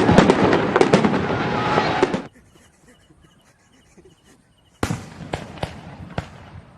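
Fireworks display: a dense barrage of bangs and crackling that cuts off abruptly about two seconds in. After a near-quiet gap with faint repeated chirping, a single loud bang almost five seconds in starts a few more scattered bursts that fade away.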